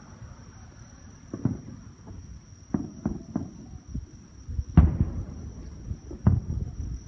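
Fireworks bursting: about half a dozen dull booms and pops at irregular intervals, the loudest just under five seconds in.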